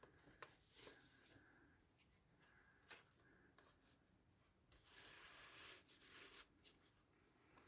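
Mostly near silence, with faint rustling and a few soft taps of paper and card being handled, strongest about five seconds in, as tags are slid into the journal's paper pockets.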